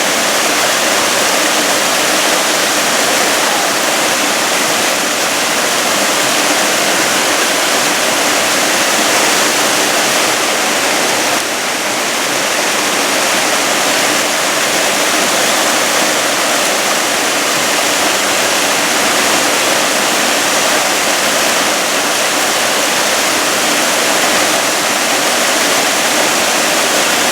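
Waterfall pouring steadily, a loud, even rush of falling water close by.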